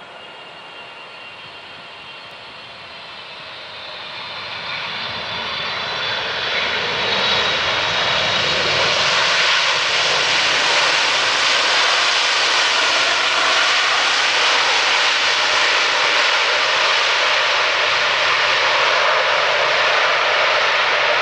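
Boeing 777-300ER's GE90-115B jet engines: a faint high whine as the airliner comes in over the runway, swelling over several seconds into a loud, steady roar as it touches down and rolls out along the runway.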